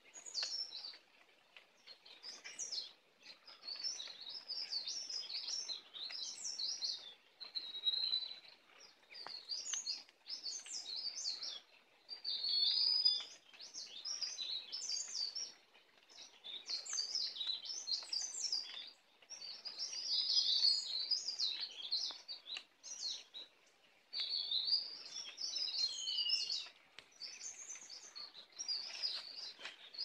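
A small songbird singing: rapid, high-pitched twittering phrases a second or two long, repeated with short pauses between them.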